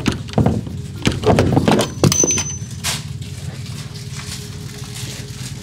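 A door being knocked and rattled, with several knocks, thuds and clatters in the first three seconds, then a faint steady hum.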